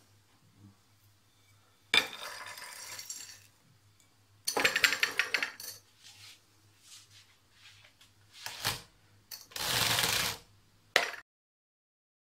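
Toasted, crushed hazelnuts and almonds poured from a ceramic bowl into a glass jar, rattling and pattering against the glass in a few separate pours. A sharp click comes near the end.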